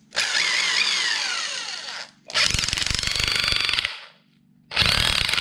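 ProStormer corded electric impact wrench run in three bursts on the trigger: about two seconds, then about a second and a half, then a short one starting near the end. A whine falls in pitch through the first burst.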